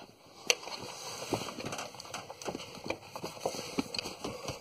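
Ratcheting wrench clicking in short, irregular runs of small metallic ticks, about three or four a second, as it turns a long socket to back out an engine oil pressure sensor. There is one sharper click about half a second in.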